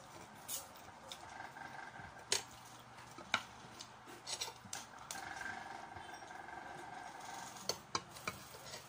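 Eating sounds: utensils clicking against dishes in scattered sharp clicks, the loudest about two and three seconds in and a quick cluster near the end.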